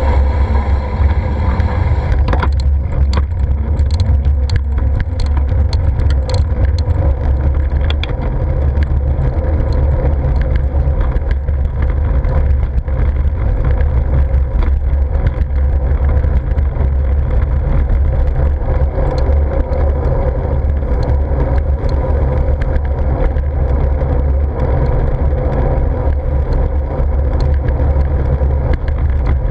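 Steady wind and road rumble from a bicycle ride along a street with car traffic, picked up by a GoPro's microphone, with a few light clicks and rattles in the first several seconds.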